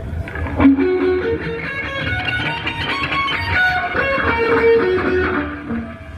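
Electric guitar played through the stage PA during a rock band's sound check, picking a melodic line of held single notes.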